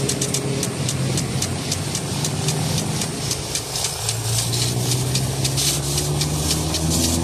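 Impact sprinkler spraying water, its arm ticking rapidly at about four to five ticks a second over the hiss of the spray. Under it runs a steady low hum.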